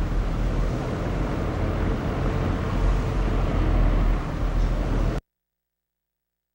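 Electric fan running on its low speed setting, a steady rush of air over a low rumble, while a cardboard sheet is moved in and out in front of it to pulse the airflow. The sound stops suddenly about five seconds in.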